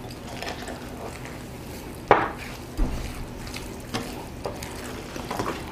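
A spoon stirring sugar into thick rice batter in a glass bowl, with a soft scraping sound and a few sharper clinks against the bowl, the loudest about two seconds in.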